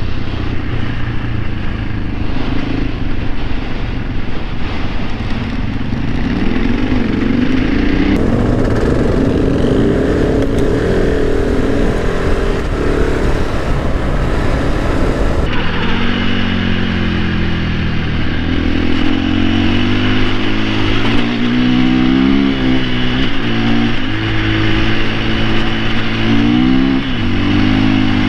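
Dirt-bike engine running under way, heard from the moving bike. Its note rises and falls with throttle and gear changes. The sound changes abruptly twice, about eight and fifteen seconds in.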